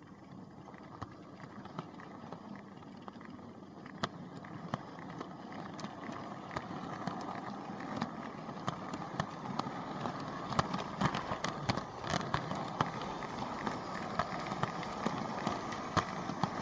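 Vintage Märklin H0 model train running on pressed-metal M-track, heard from aboard: a steady rolling rumble from the metal wheels with many irregular sharp clicks at rail joints and points, growing gradually louder.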